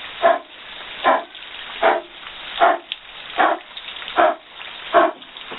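Kapalbhati pranayama breathing: forceful exhalations pushed out through the nose in a steady rhythm, a short sharp puff a little more than once a second, seven in a row.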